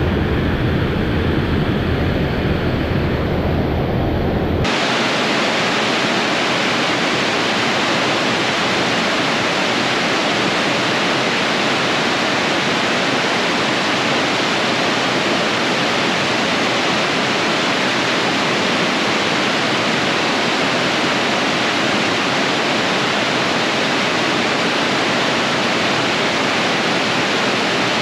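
Steady rush of river water pouring over a lock dam. About five seconds in, a low rumble stops abruptly and the rushing water continues alone.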